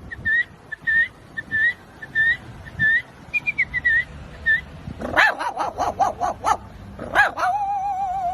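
A dog whimpering in a run of short, high, rising whines, about two a second. About five seconds in it breaks into a quick burst of yelping barks, then holds a long wavering howl near the end.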